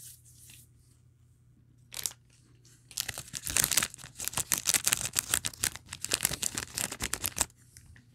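Snack packaging being handled and torn open: a short rustle about two seconds in, then dense, rapid crinkling for about four and a half seconds.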